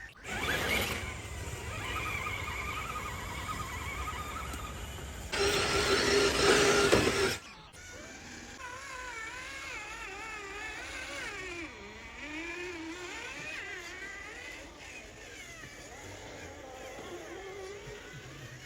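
Radio-controlled scale crawler's electric motor and gearbox whining as it crawls, the pitch rising and falling with the throttle. A louder spell of motor and gear noise runs from about five seconds in to about seven and a half seconds in.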